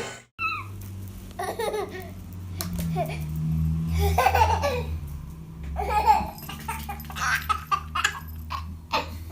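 A baby laughing in a string of short bursts and giggles, over a steady low hum.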